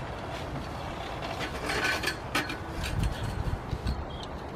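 Metal frame of a collapsed pop-up canopy dragged over a grass lawn, rattling and clanking irregularly with a steady scraping, busiest between about one and a half and three and a half seconds in.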